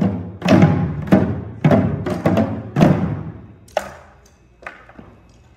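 An ensemble of janggu, Korean hourglass drums, struck together in loud, ringing strokes about every half second. After about three seconds the playing thins to a few single strikes that fade away.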